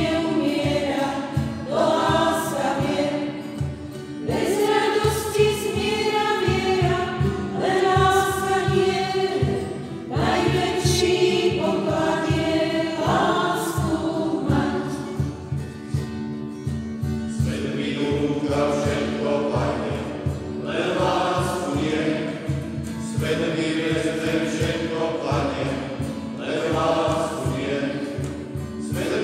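Group of voices singing a Slovak Christian worship song in phrases, with a steady low note held underneath.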